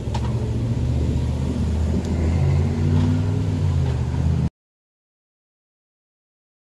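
Toyota Avalon's engine running with a steady low hum that shifts slightly in pitch partway through, cutting off suddenly about four and a half seconds in.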